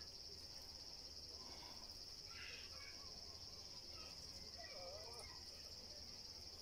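Faint, steady high-pitched insect trill.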